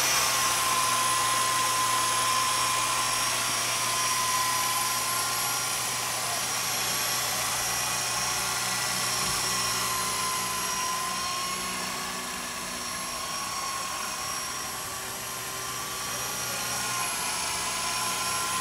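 Walkera Lama 400 electric coaxial RC helicopter in flight: a steady motor whine over the rushing of its rotors, the whine wavering slightly in pitch with the throttle. It grows fainter toward the middle and louder again near the end.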